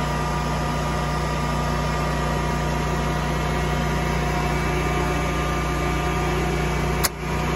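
Generac standby generator running steadily under the power-outage test. About seven seconds in, the automatic transfer switch throws back to utility power with a sharp clunk.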